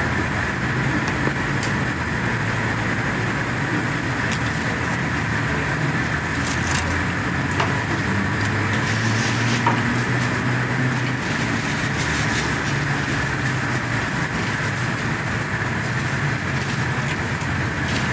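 Steady road traffic: cars running and passing, a continuous hum of engines and tyres.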